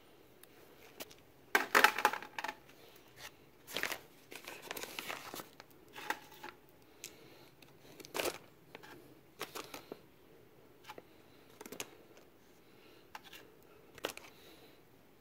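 Plastic bag of tin cut pieces crinkling as it is handled, loudest about two seconds in, then small tin pieces clicking now and then as they are set on a stainless steel scale platform.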